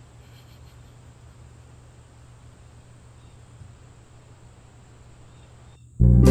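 Quiet outdoor background with a steady low hum and a few faint high chirps early on. About six seconds in, loud background music with plucked strings starts suddenly.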